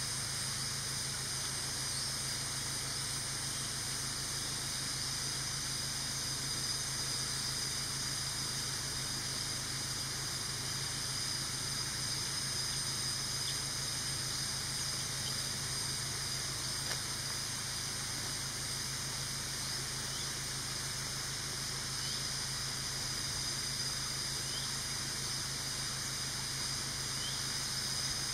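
Steady high-pitched insect drone in forest, with a low even hum underneath. It does not change throughout.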